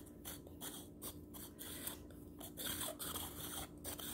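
Volcanic stone face roller rolling across the skin of the forehead: faint, irregular scratchy rubbing with small clicks as the stone ball turns in its plastic housing.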